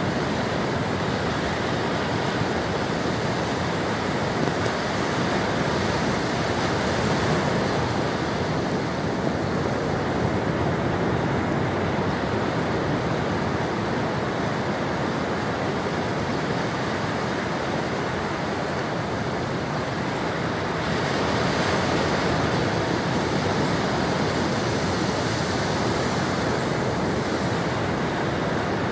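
Ocean surf: small waves breaking and washing up a flat sandy beach in a steady rush, swelling slightly about a fifth of the way in and again from about two-thirds through.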